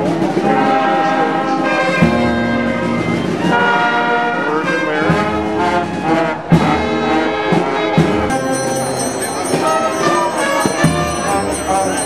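Brass band of trumpets and trombones playing a slow piece of held notes, with a bass drum struck every couple of seconds. A high, steady ringing joins about eight seconds in.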